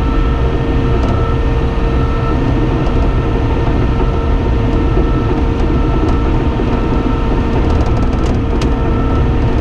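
Cat D5N XL bulldozer's diesel engine running steadily under load while the dozer tracks and pushes dirt, heard from inside the cab, with a steady whine over the engine noise and a few light ticks near the end.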